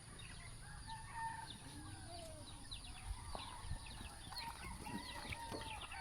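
Faint farmyard chickens clucking with a rooster crowing, among many short, high, falling chirps.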